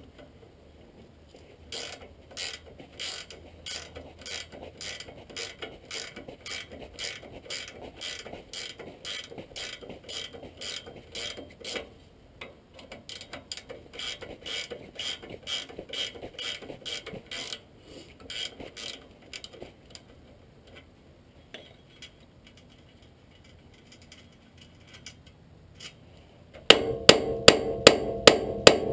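Ratchet spanner clicking in a steady rhythm, about two to three clicks a second, as the nut on a Land Rover Defender's track rod end ball joint is undone. Near the end, a quick run of loud hammer blows on metal at the track rod end, knocking the ball joint's taper loose from the steering arm.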